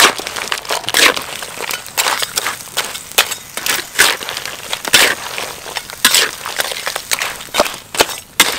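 Metal spatula scraping and tossing whole crabs in a steel wok, the shells clattering against the pan in short, irregular strokes, one or two a second.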